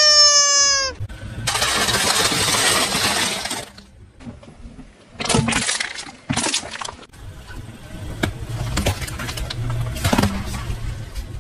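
A rubber squeaky toy squeals as a car tyre flattens it, the squeal falling in pitch and ending about a second in. Then come crunching, crackling and cracking as the tyre rolls over and crushes several more objects, over the low rumble of the slowly moving car.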